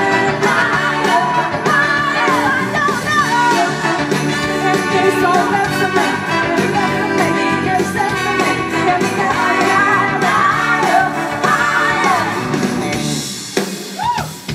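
Live soul band playing, a woman singing lead over guitar, bass, keys, drums and horns. Near the end the band drops away, leaving the drums.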